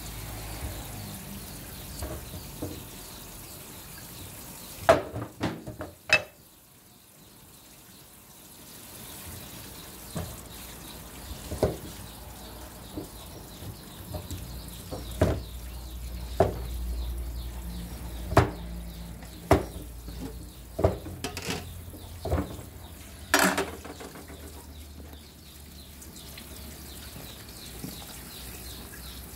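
Cleaver cutting papaya on a chopping board: a dozen or so sharp, irregular knocks of the blade striking the board, a second or more apart, over a steady background hiss.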